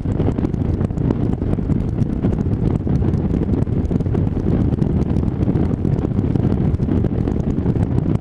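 Wind buffeting a foam-covered helmet microphone on a moving motorcycle: a loud, dense, fluttering rumble that hardly lets up. The extra foam wrapped round the mic is not keeping the wind noise out.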